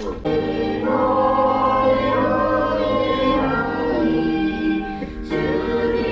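A group of voices singing a worship song together in a church, with long held notes and a brief pause about five seconds in.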